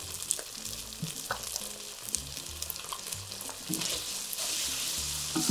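Chilli sambal paste with sweet soy sauce sizzling in a hot non-stick wok as a wooden spatula stirs it, with small scrapes and taps of the spatula on the pan. The sizzle grows a little louder past the middle.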